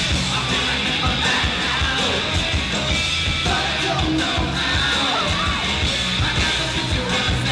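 A rock band playing live, with drums, electric guitars and a singer's voice. It is heard from out in the audience.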